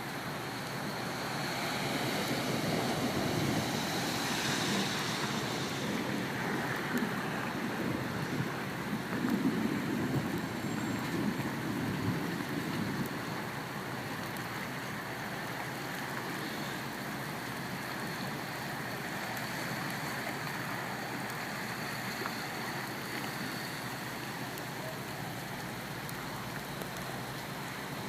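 Storm floodwater rushing across a road in rain, a steady wash of noise that swells for several seconds in the first half.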